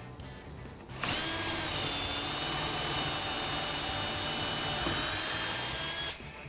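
Power drill spinning up about a second in and running steadily for about five seconds, boring a hole for a drawer pull through the drill guide of a cabinet hardware jig into the drawer front, then stopping abruptly.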